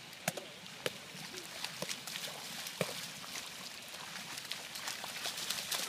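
Spikeball rally in ankle-deep water: a string of sharp smacks as hands and the roundnet hit the small ball, at irregular intervals, over steady splashing of feet in the water. There are a few short vocal calls from the players.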